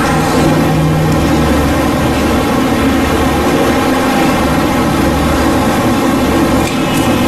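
A steady, loud mechanical drone with a low hum.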